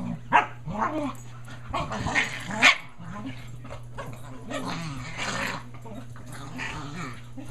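Two small dogs, an American cocker spaniel and a Shih Tzu, play-fighting and vocalising in short calls that bend up and down, with two loud sharp ones about half a second and two and a half seconds in.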